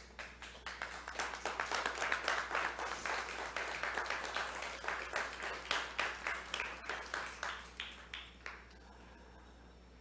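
Congregation applauding, a dense patter of many hands that swells and then dies away near the end.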